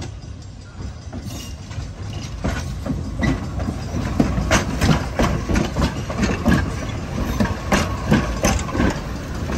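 Chicago, Aurora and Elgin interurban electric cars rolling past at close range, with a low rumble that grows louder over the first couple of seconds. From about two and a half seconds in, a run of irregular clicks and knocks comes from the wheels on the rails as the cars go by.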